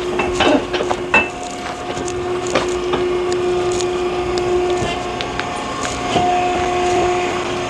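Hydraulic log splitter splitting oak firewood: a steady hum from the hydraulics with sharp cracks of the wood giving way, the loudest about a second in.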